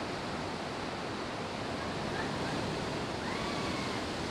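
Steady rush of ocean surf breaking and washing over the reef.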